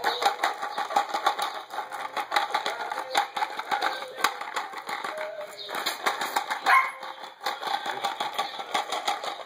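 Border Collie puppies yipping and whining, over a busy run of irregular clicking and rustling, with one sharp rising yelp about seven seconds in.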